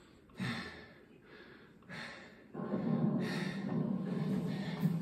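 Heavy breaths close to a headset microphone, two short puffs in the first two seconds. From about halfway a steadier, louder low sound sets in and carries on.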